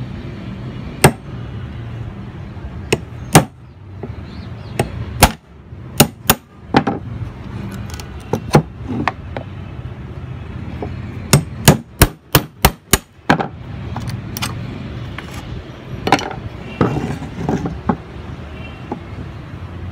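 Hammer blows on a metal chisel held against a bamboo tube, cutting it open along a row of drilled holes. The sharp strikes come irregularly, with a quick run of several blows about halfway through.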